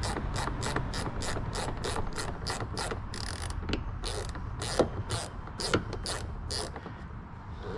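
Ratchet clicking while backing out a T20 Torx screw, about four clicks a second at first, then slower, stopping near the end.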